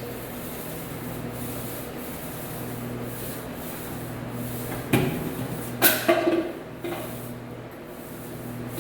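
Paint roller rolling paint onto a wall: a soft, steady rubbing, with two sharp knocks about five and six seconds in.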